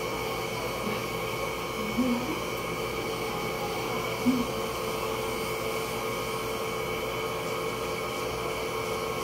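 Cordless hair clipper running with a steady buzzing hum as it cuts short hair. Two brief louder sounds break in, about two seconds and four seconds in.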